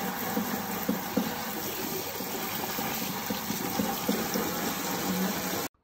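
Water spraying from a handheld sink sprayer onto a small dog and into a stainless steel sink: a steady hiss and splash that cuts off suddenly near the end.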